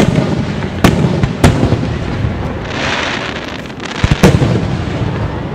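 Aerial fireworks shells bursting overhead. A loud bang opens, with more sharp bangs about a second and a second and a half in, a hissing stretch around three seconds in, and a close pair of bangs about four seconds in, each bang trailing a low rolling echo.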